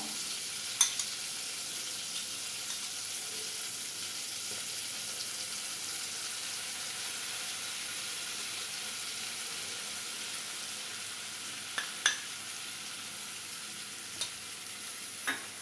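Melted butter sizzling steadily in a pan, with maida (plain flour) just added to start a white-sauce roux. A few light clicks of a utensil on the pan about a second in, around twelve seconds in and near the end.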